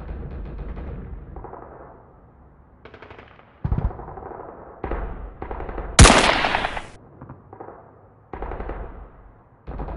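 Gunfire sound effects in several bursts of rapid shots. The loudest and sharpest burst comes about six seconds in.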